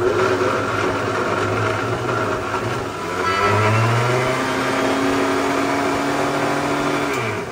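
Electric mixer grinder (mixie) running, grinding thick boiled chana dal dry with no water. About three seconds in its pitch rises and settles higher, and it switches off abruptly just before the end. The dense dal packs down and barely moves in the jar.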